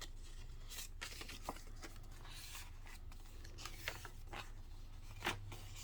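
Faint rustling and a few soft taps of paper cards and journal pages being handled and turned, over a low steady hum.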